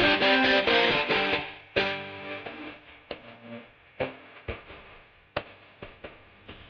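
Background music led by distorted electric guitar: dense sustained notes for about the first second and a half, then the music thins out to a handful of separate struck notes that ring and fade.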